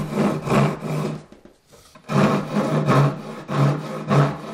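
Hand saw cutting into a spruce board in rhythmic back-and-forth strokes, about two a second, with a short pause a little over a second in: sawing the shoulders of the shelf's side pieces.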